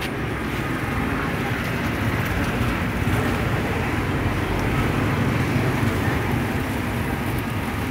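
Road traffic passing close by: a steady low rumble of vehicles.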